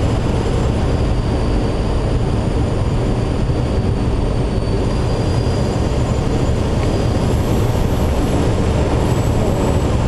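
Steady rush of air around the cockpit and canopy of an engineless Schweizer 2-33A glider in a fast, steep turn, a loud low rumble with faint thin high whistles above it.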